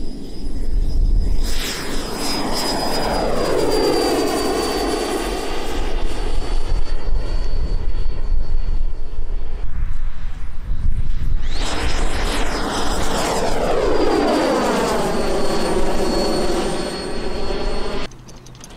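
Electric RC model airplane making two fast passes, its motor and propeller whine sliding down in pitch as it goes by each time. The sound cuts off suddenly near the end.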